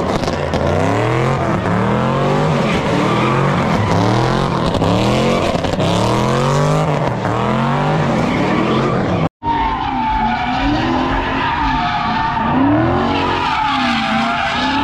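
Drifting car with its engine revving up and down over and over, and tires squealing. The sound cuts out for a moment about nine seconds in, then a steady squeal carries on over the engine.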